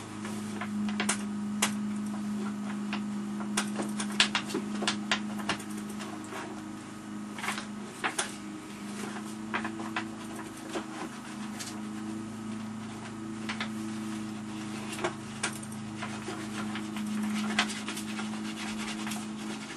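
Small irregular clicks and rustles of pen-and-paper handling over a steady low hum.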